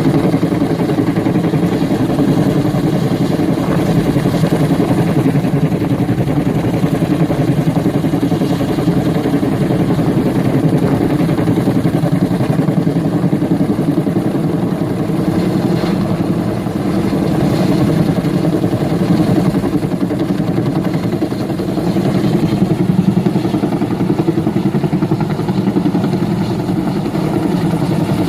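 Bell 212 helicopter running, its rotor and turbine engines making a loud, steady, rapidly pulsing beat.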